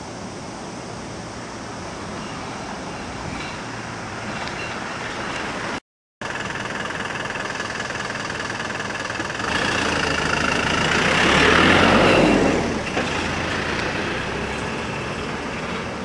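Rail depot sound of parked electric trains: a steady mechanical noise, broken by a cut about six seconds in. After the cut a low hum sets in, and a rushing noise swells to its loudest around twelve seconds and then fades.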